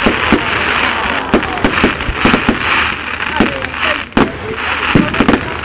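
Fireworks display: a rapid, irregular string of sharp bangs and crackles from bursting aerial shells and rockets, recorded through a mobile phone's microphone.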